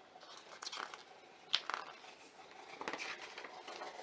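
Paper pages of a photo book being handled and turned: a few separate soft rustles and flicks.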